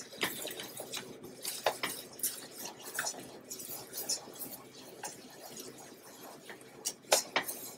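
Silicone whisk stirring a thick roux gravy in a nonstick saucepan: soft, irregular scrapes and light clicks against the pan, with two louder knocks near the end.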